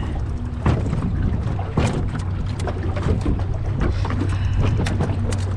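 Boat motor running with a steady low hum under a wash of water and wind noise on the microphone, with a few sharp knocks, one just under a second in and another near two seconds.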